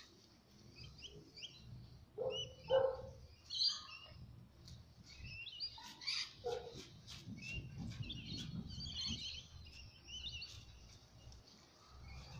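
Small birds chirping and calling repeatedly, with a few louder short calls about two to four seconds in.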